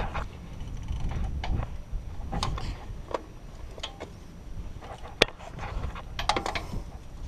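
Scattered metal clicks and clinks of a jaw-type oil filter wrench being handled and clamped onto a tractor's engine oil filter, with one sharp click about five seconds in. Wind rumbles on the microphone.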